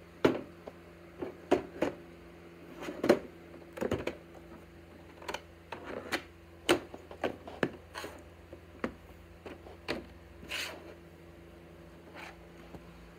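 Plastic VHS clamshell case being handled and snapped open and the cassette taken out: irregular sharp clicks and knocks of plastic on plastic, with a brief scrape near the end.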